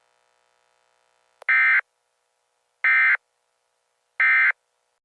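Emergency Alert System end-of-message data bursts: three short, identical buzzy digital chirps about a second and a half apart, the signal that closes an emergency broadcast.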